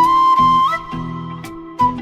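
Background music: a flute-like melody holding a note that steps up in pitch, over a steady low plucked accompaniment.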